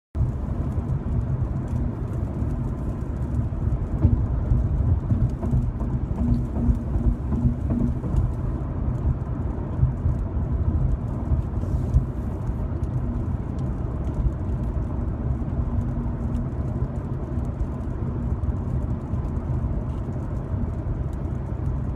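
Steady low rumble of a car driving, heard from inside the cabin as road and engine noise.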